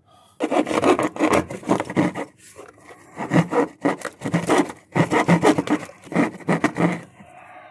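A loose hacksaw blade sawing back and forth through a plaster-of-Paris hill shell laid over paper towels and cardboard lattice, a quick run of rasping strokes with a couple of short pauses.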